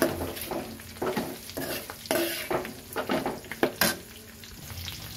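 A metal spatula stirring and scraping fried bitter gourds and fresh curry leaves around a steel kadai of hot oil, which sizzles throughout. The strokes come irregularly, with one sharp clack of the spatula against the pan about four seconds in.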